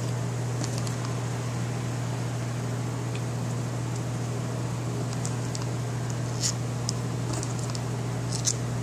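A steady low hum with a few faint clicks and taps as the small parts of a bathroom exhaust fan motor are handled during reassembly.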